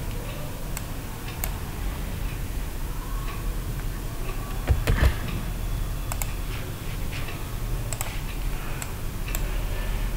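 Scattered clicks of a computer mouse and keyboard keys as a spreadsheet is edited, with a louder cluster of knocks about five seconds in, over a low steady hum.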